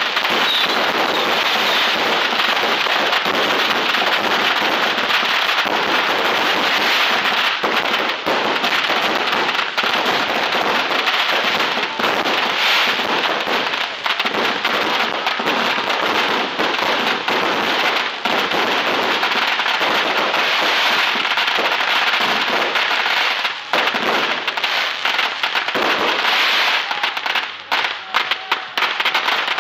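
Fireworks grand finale: a dense, unbroken barrage of bangs and crackling from bursting aerial shells, thinning to separate cracks near the end.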